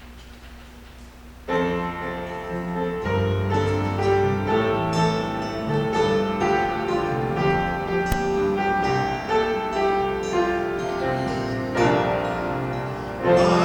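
Piano playing a slow hymn introduction with sustained chords and a bass line, starting about a second and a half in after quiet room tone.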